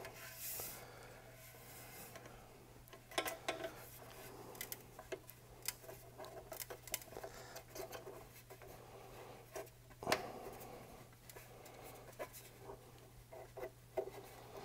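Faint, scattered metallic clicks and taps as a band clamp is handled and fitted around a motorcycle exhaust muffler, with a sharper clack about ten seconds in.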